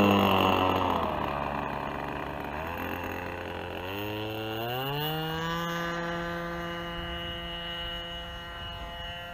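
RC flying-lawnmower model aircraft's engine and propeller: its pitch drops as it passes close, then about four seconds in it is throttled up with a rising pitch and holds steady at high power, fading as the model runs away down the runway on its takeoff run.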